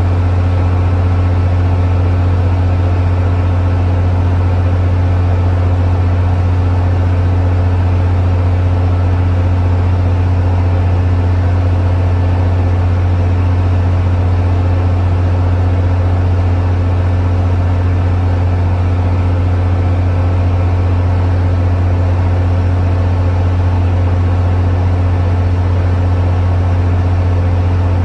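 MBTA GP40MC diesel-electric locomotive idling at a standstill: a loud, steady low hum that does not change pitch or level.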